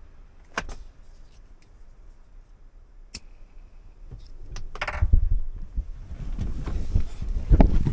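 A few sharp clicks inside a truck cab, then low thumping and rubbing handling noise as the camera is picked up and moved, loudest near the end.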